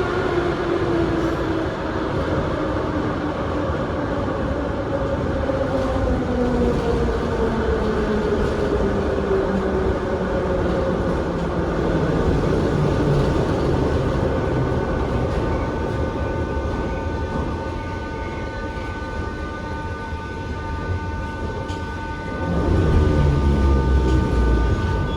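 Moscow Metro 81-717 subway car running through the tunnel: the traction motor whine glides down in pitch as the train slows, over a steady rumble of wheels on rail, with a steady high hum taking over. Near the end the rumble grows louder.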